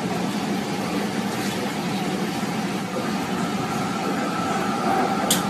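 Steady rumble and hum inside a public-transit passenger cabin, with no speech.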